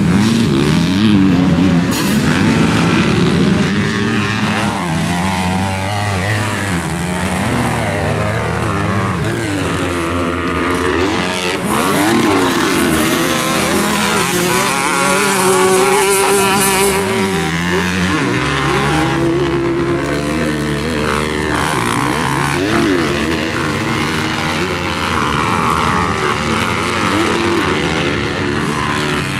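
Several 250-class motocross dirt bike engines racing, revving up and dropping off again and again as riders shift and hit the throttle, their rising and falling pitches overlapping.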